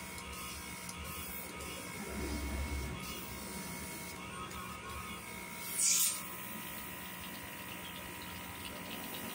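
A small machine running with a steady hum of several tones, with a short hiss about six seconds in.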